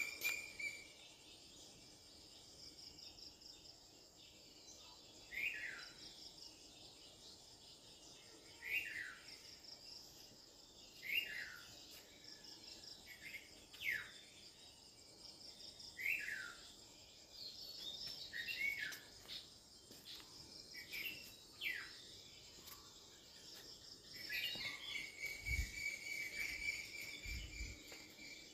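Insects chirping steadily in a fast high pulse, with a bird giving short downward-sliding calls every couple of seconds over them. Two dull low thumps near the end.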